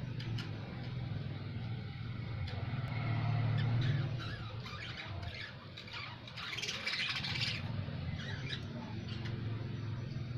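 Fischer's lovebirds chirping and squeaking in short high calls, with a dense burst of chatter about six to seven seconds in, over a steady low hum.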